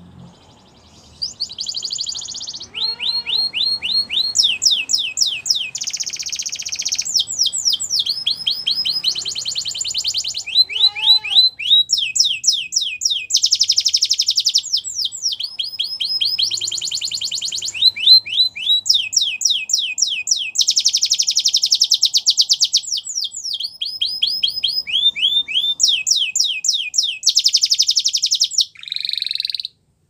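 Domestic canary singing one long continuous song: phrases of rapidly repeated downward-sweeping notes alternate with fast, dense rolls. It starts about a second in and breaks off just before the end.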